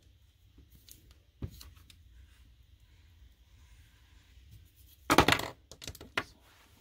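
Paper and craft supplies handled on a work table: a light tap about a second and a half in, then a loud half-second handling noise about five seconds in, followed by a few light clicks.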